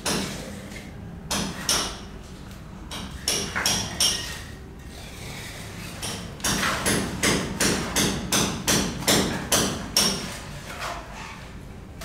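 A hand tool striking concrete and masonry at the base of a wall. There are a few scattered sharp knocks, then near the middle a quick, even run of strikes, about three a second.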